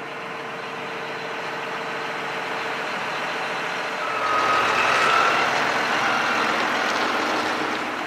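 John Deere 6190R tractor running, its engine noise growing steadily louder. From about four seconds in it runs close and louder, with a whine on top.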